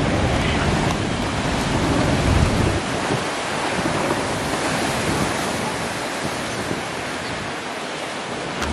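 Ocean surf breaking over rocks: a steady rush of waves and foam. Wind rumbles on the microphone for roughly the first three seconds.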